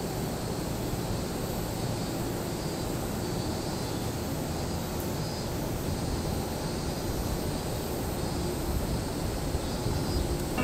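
Steady low rumble and hiss of a railway station platform, with an electric train standing at the platform.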